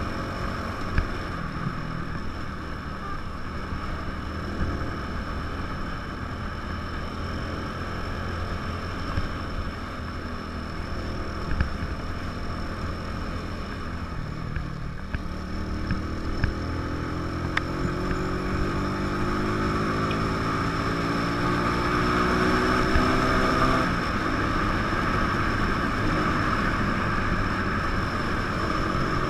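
A 150 cc motorcycle's engine running while riding, with wind rush. About halfway through the engine revs up, its pitch rising over several seconds, then holds steady at the higher speed.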